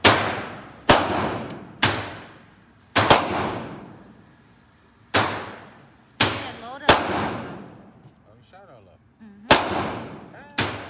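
Gunshots on an indoor shooting range, about nine sharp cracks at uneven intervals, each followed by a long reverberating decay off the range walls.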